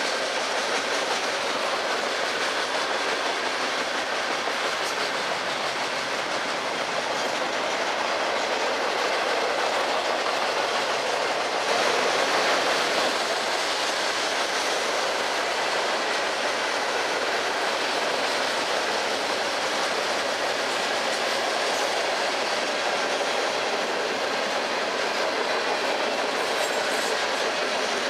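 Freight train of tank cars, boxcars and covered hoppers rolling past: a steady noise of steel wheels running on the rails, swelling slightly about twelve seconds in.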